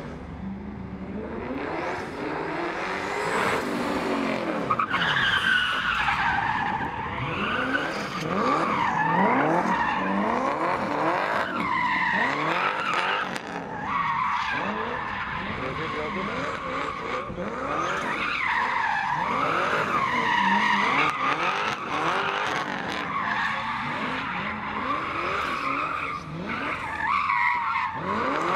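A car being drifted: engine revving up and down, with tyres squealing in long, wavering screeches from about five seconds in as it slides.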